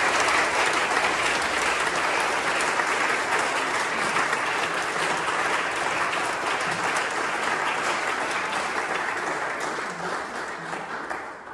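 Audience applauding, a dense steady patter of clapping that fades away near the end.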